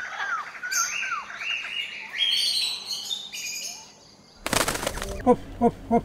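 Several forest birds chirping and whistling in short rising and falling notes, for about four seconds. Then a brief burst of noise and a few short calls near the end.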